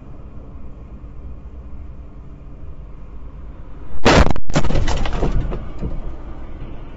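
A low steady rumble from the idling patrol car and traffic, then about four seconds in a loud car crash: a drunk driver's car smashes into the roadside stop with breaking glass, and debris clatters and fades away over the next two seconds.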